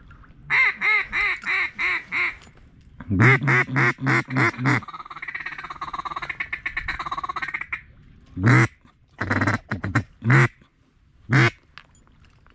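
Duck call blown in a string of quacks: six even quacks, then six louder ones, then a few seconds of rapid chattering, and a few single quacks near the end.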